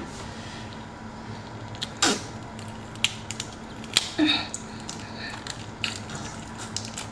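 Hard sucking at the open end of a giant tiger prawn's shell to draw the meat out: scattered clicks and wet sucking noises, with a short falling squeak about two seconds in and another squeaky slurp just after four seconds.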